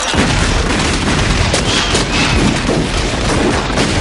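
Many guns firing at once in a dense, unbroken barrage of shots, starting suddenly.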